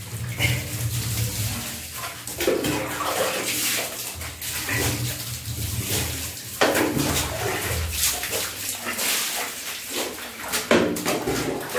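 Water running and splashing in a tiled bathroom, with a few short sounds from a wet small dog mixed in.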